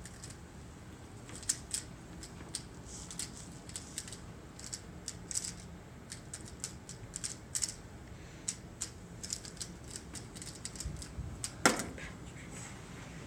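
Rubik's Cube being turned fast in a speed solve: rapid, irregular clicking and clacking of its plastic layers, with one louder clack near the end.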